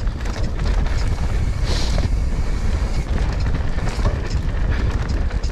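Wind rushing over the action camera's microphone at riding speed, with mountain-bike tyres rolling on a dirt trail and scattered rattles and clicks from the bike over bumps. A brief hiss comes about two seconds in.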